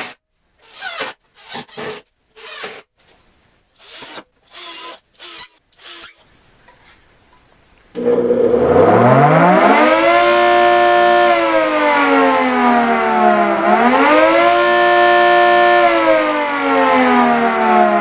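A run of short, separate noises, then, about eight seconds in, the homemade wooden air-raid siren starts up: its motor-driven vaned rotor spins inside a two-layer stator and sounds two notes together. The wail climbs quickly in pitch, holds, dips and climbs again briefly, then slowly sinks.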